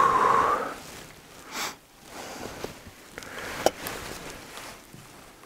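A short, loud breath or sniff at the start, then footsteps crunching and swishing through deep snow with clothing rustling.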